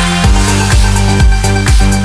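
Electronic dance music with a heavy kick drum beating about twice a second under held synth chords.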